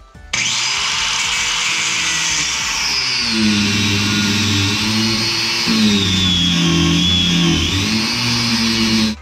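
Angle grinder with a cut-off wheel cutting through a steel suspension coil spring: loud, steady grinding whose motor whine sags in pitch under load and climbs back near the end. It starts suddenly and cuts off just before the end.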